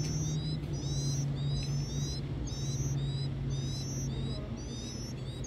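Nestlings begging in the nest: a run of thin, high calls repeated about twice a second, over a steady low hum.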